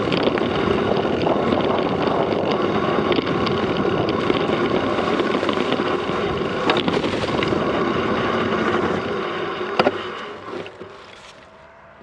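Mountain bike riding down a dirt trail: wind rushing over the microphone and the bike rattling over the rough ground, with a couple of sharp knocks from bumps. The noise dies down a little before the end as the bike slows.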